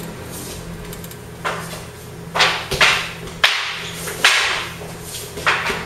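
Long wooden Bajiquan spears (da qiang) clacking against each other in sparring: about six sharp strikes at an uneven pace, starting about a second and a half in.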